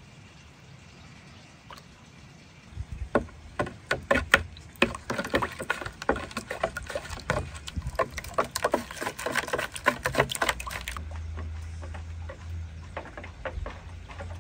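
A wooden spoon briskly stirring a thin liquid mixture in a glass bowl, knocking against the glass in quick, irregular taps. The taps start about three seconds in, come thickest through the middle and thin out near the end.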